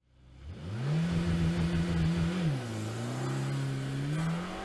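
Car engine revving as an outro sound effect: it climbs quickly in pitch about half a second in, holds steady, drops sharply about two and a half seconds in as at a gear change, then climbs slowly again.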